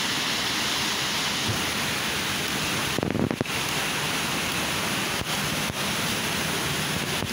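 Steady rush of a shallow rocky forest creek and a small waterfall, water running over stones.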